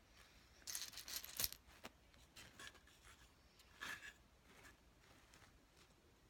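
Faint handling noise: small hard objects rustled and set down, with a sharp click about a second and a half in and another short bout of rustling near four seconds in.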